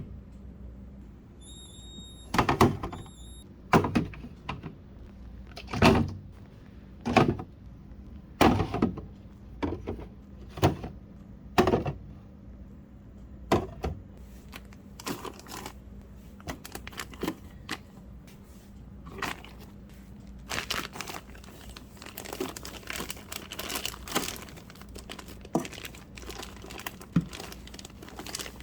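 Things being handled while a fridge is cleaned: a run of knocks and thunks about once a second as items are set down or moved, then, from about two-thirds of the way through, plastic crinkling and rustling.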